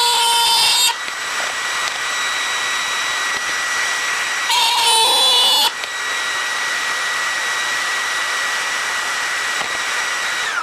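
A woodworking power tool's motor running steadily with a high whine over a hiss. Right at the start and again about four and a half seconds in, it gets louder for about a second, with extra tones, as it works the wood.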